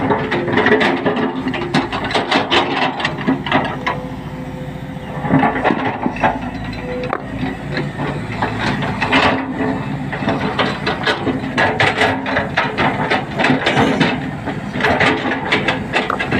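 A Volvo crawler excavator's diesel engine running under a dense, irregular clatter of knocks and clanks as the machine works among boulders. The clatter eases briefly about four seconds in.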